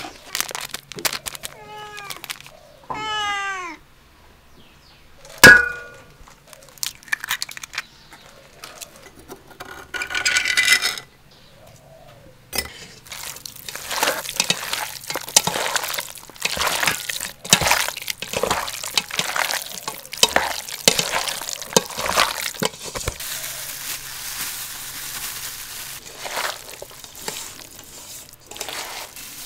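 A domestic cat meows a few times in the first four seconds, each call falling in pitch, and a sharp knock follows at about five seconds. From about 13 seconds on there are dense wet clicks and squelches of bare hands mixing sliced raw meat with egg and flour in an enamel bowl.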